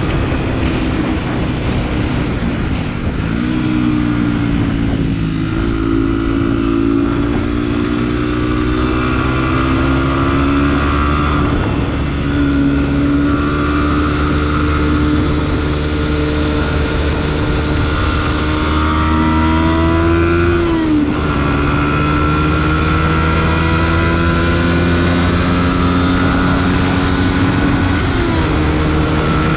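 Beta RR 125 LC Enduro motorcycle's single-cylinder engine running under way, its pitch climbing and settling several times as it revs through the gears, with a sudden drop about two-thirds through.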